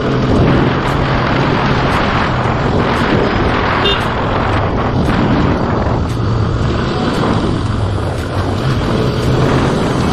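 Bajaj Pulsar RS200 single-cylinder engine running steadily under way, with heavy wind noise on the microphone.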